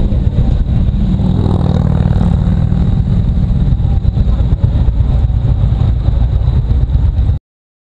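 Harley-Davidson Road Glide Ultra motorcycle on the move, its V-twin engine running under heavy wind buffeting on the microphone. The sound cuts off suddenly near the end.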